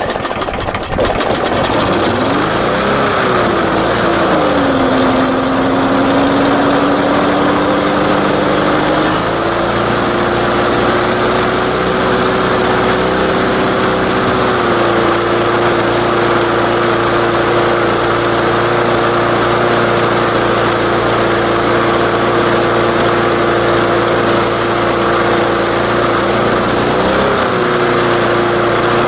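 Briggs & Stratton 3.75 HP single-cylinder lawn mower engine running on straight paint thinner. Just after starting, its speed surges up and down, then settles into a steady run, stepping up once, down again, and blipping briefly near the end.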